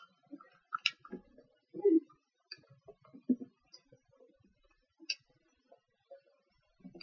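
Paper being folded and creased by hand on a wooden table: a scattering of short crinkles, rustles and light taps, the loudest about two seconds in.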